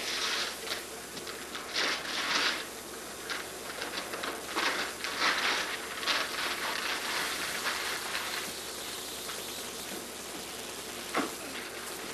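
Wrapping paper crinkling and tearing in irregular bursts as gifts are unwrapped by hand, with a brief sharp click near the end.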